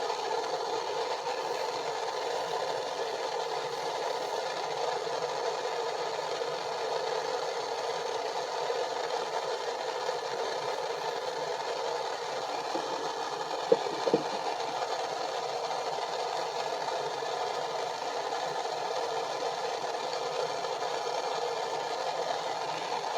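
Propane torch burning with a steady, even hiss, its flame left lit between soldered joints, with two short knocks about fourteen seconds in.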